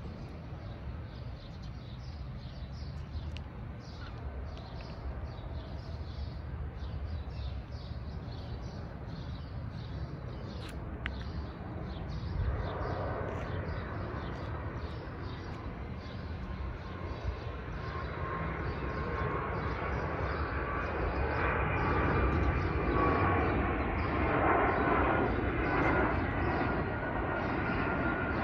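FedEx cargo jet on landing approach passing low overhead: its engine noise grows from about twelve seconds in, with a steady whine, and is loudest near the end.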